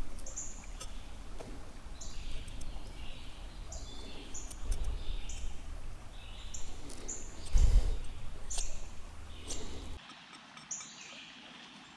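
Knife blade cutting notches into a green wooden stick, with scraping and knocking handling sounds that stop abruptly about ten seconds in. Behind it a bird repeats a short high chirp about once a second.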